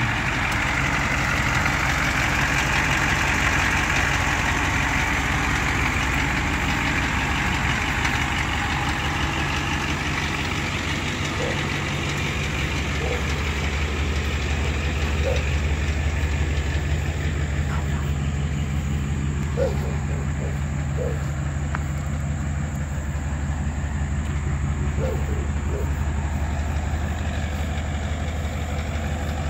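Ford 7.3-litre turbo diesel engine idling steadily, a deep drone that grows stronger about halfway through.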